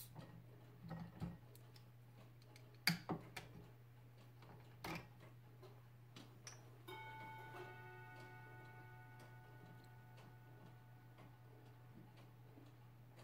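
Wooden gears and lever of a hand-worked Brew Tipper kinetic sculpture making faint clicks and knocks, with two sharper clacks about three and five seconds in. About seven seconds in, a strike leaves a clear ringing note that fades slowly over several seconds.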